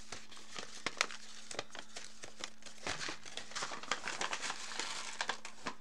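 Kraft paper herb bag crinkling and rustling as it is handled and opened, with many small irregular crackles.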